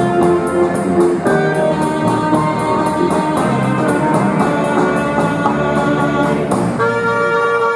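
Live Balkan band music: alto saxophone and clarinet playing a melody over a drum kit keeping a steady, quick cymbal beat, with bass guitar. Recorded through a camera's built-in microphone.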